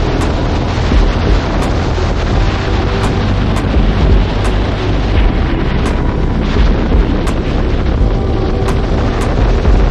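Heavy wind rumble buffeting the camera microphone at highway speed on a KTM Duke 390, with the bike's single-cylinder engine running underneath.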